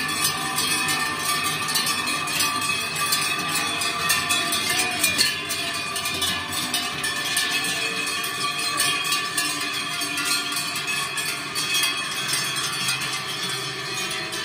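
Many large cowbells clanging and ringing over each other as a herd of Holstein cows walks past, each cow's bell swinging with its stride; a little louder in the first few seconds, then steady.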